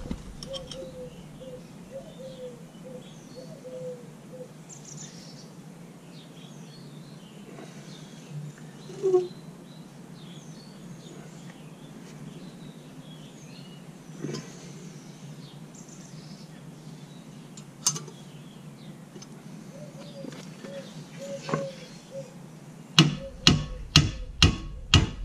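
Birds chirping over quiet outdoor background, with a few isolated clicks and one brief louder sound about nine seconds in. Near the end, a fast run of steel hammer blows, about two or three a second, on a puller fitted to a seized cast-iron trolley wheel to free it.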